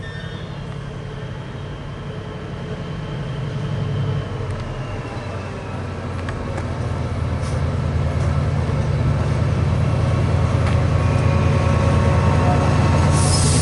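Class 68 diesel locomotive's engine drones as it draws closer, growing steadily louder, with a brief dip about four seconds in. A loud hiss starts just before the end.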